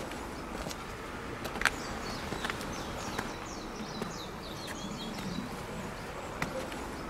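Outdoor ambience with small birds chirping and warbling in the background, soft footsteps, and a few sharp clicks, the loudest about one and a half seconds in.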